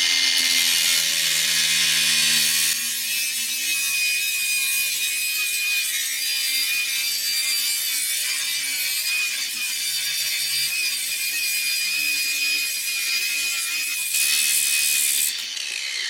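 Ryobi angle grinder with a grinding wheel, not a cutting disc, grinding through the metal of a cheese grater: a steady high whine over a harsh grinding hiss. Near the end the grinder switches off and its whine falls away as the wheel spins down.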